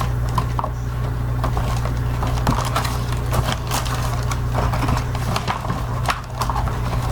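A fishing lure's packaging being handled: scattered light clicks and crinkles of plastic and card, over a steady low hum.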